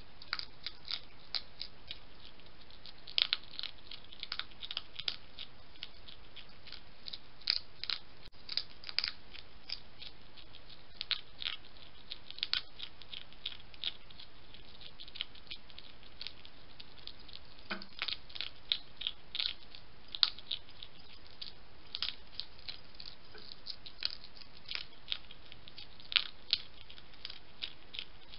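European hedgehog eating from a dish, with irregular sharp crunches and clicks of chewing several times a second over a steady background hiss.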